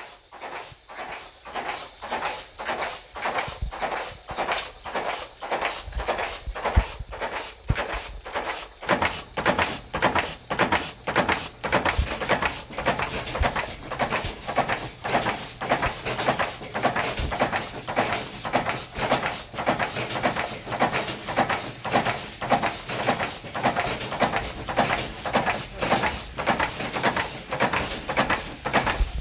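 Old press machine stamping eraser covers at speed: a steady run of knocking strokes, about two to three a second, that grows louder and busier about nine seconds in.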